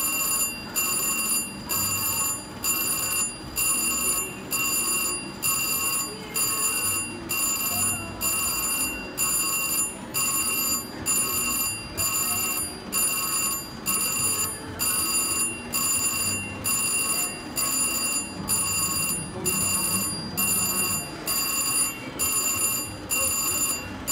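Slot machine ringing: an electronic bell-like chime that repeats about once a second with short gaps while the reels spin, over a faint murmur.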